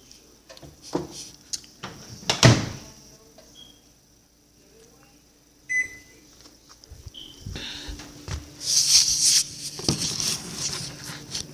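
Microwave oven being handled: a few knocks and clunks of the door, loudest about two and a half seconds in, and several short beeps. From about seven seconds in the oven runs with a steady low hum, with a burst of hiss around nine seconds in.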